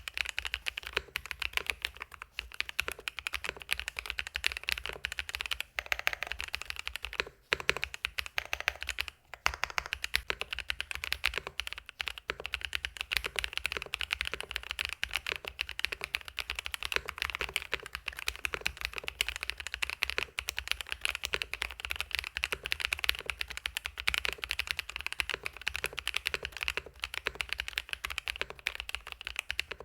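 Fast, continuous typing on a mechanical keyboard with fully lubricated switches: a dense run of keystroke clicks, broken by a few short pauses in the first half.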